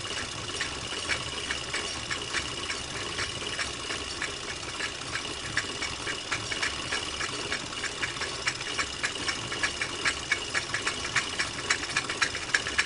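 A film projector running: a steady whir with a fast, uneven clatter of clicks that grows sharper toward the end.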